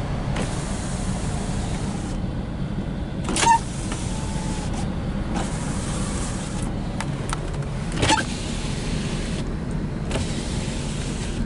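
Electric power window motors of a 1996 Buick Roadmaster Estate wagon running as the windows go up and down, with two sharp clunks, about three and a half seconds in and again about eight seconds in. A steady low hum runs underneath.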